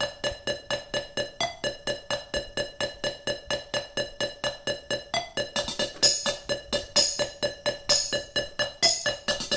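A cheesy four-bar pop loop played back from samples on a Roland SP-808 sampler: a keyboard-like note pulses steadily about four times a second, and sharp bright hits join about once a second from about six seconds in.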